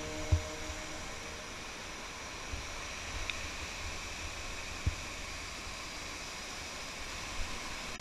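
Water rushing down the cascades of a waterfall: a steady hiss, with a few dull low thumps, one just after the start and another about five seconds in.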